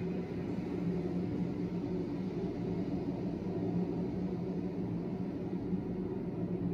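Steady low rumble of a cyclone storm sound effect playing from an interactive touchscreen display, without breaks or sudden changes.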